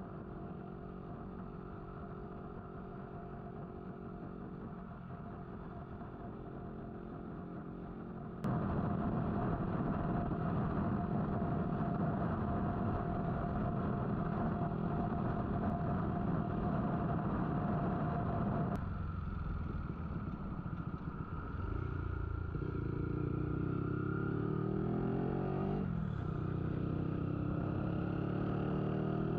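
Honda Wave's single-cylinder four-stroke engine running at road speed, heard from the saddle with wind rush over the microphone. The sound jumps abruptly louder about a third of the way in and changes again past halfway. Near the end the engine note climbs in steps as the bike speeds up.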